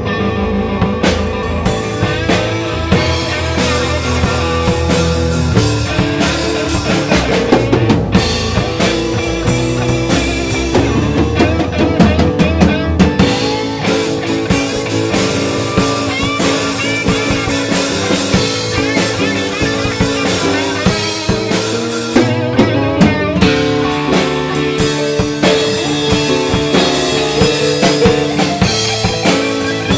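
A small band jamming live: a drum kit playing a steady beat under held electric keyboard notes. The deepest bass notes drop out about halfway through, while the drums keep going.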